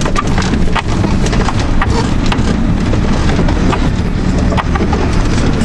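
Fire tanker truck crawling over a rough forest track, heard from inside the cab: a low engine and chassis rumble, with many sharp knocks and cracks of branches striking and scraping the cab and body.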